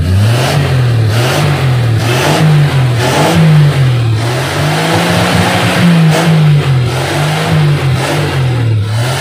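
A 1957 Chevrolet Bel Air's engine being revved up and down again and again, its pitch rising and falling about once a second.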